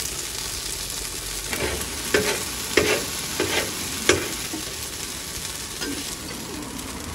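Egg-wrapped roll sizzling on a flat-top griddle, with metal utensils scraping and knocking against the steel plate about five times between one and a half and four seconds in.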